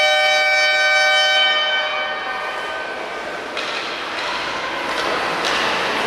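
Ice rink's electric horn sounding one steady, high tone that fades out about two to three seconds in. In these games shifts change every minute, so the horn likely signals the line change. Afterwards come rink noise and a couple of knocks.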